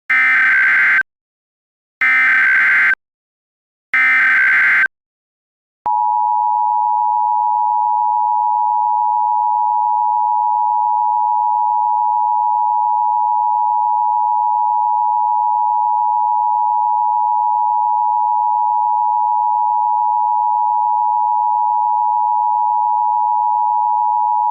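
Emergency Alert System alert opening: three short warbling SAME header data bursts, each about a second long and two seconds apart, then the EAS two-tone attention signal (853 and 960 Hz sounded together) held steady and loud for about nineteen seconds.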